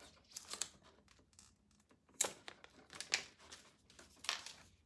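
Protective sticker seals being peeled off a new hair dryer: several short ripping and crinkling sounds, the sharpest about two seconds in.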